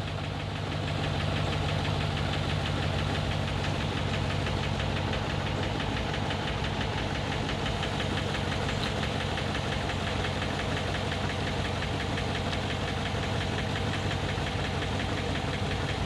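The 6.0-litre V8 of a 2009 GMC Yukon Hybrid running rough with a cylinder misfire, with a steady hum and a rapid, even mechanical noise on top. On hybrids such noise typically comes with a simple misfire even though it sounds like catastrophic internal damage.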